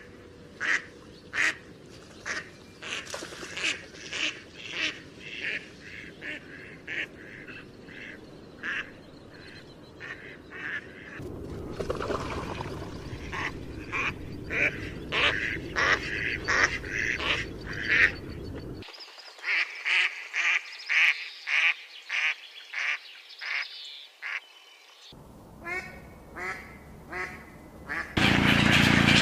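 Ducks quacking in a long run of short calls, a few a second, over a faint background that shifts several times. Near the end a louder, fuller noise comes in under the calls.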